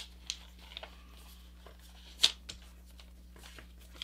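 Square sheet of folding paper being handled and pressed flat along a crease by hand: a few brief paper rustles and swishes, the loudest a little past two seconds in.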